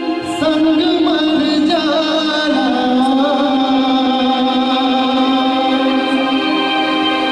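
Man singing a song into a microphone over a karaoke backing track, amplified through the stage sound system. The melody bends through the first two seconds, then settles into long held notes.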